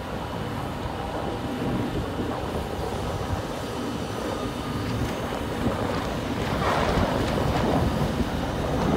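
Wind gusting across the microphone over a steady low rumble of heavy machinery, growing louder in the last few seconds.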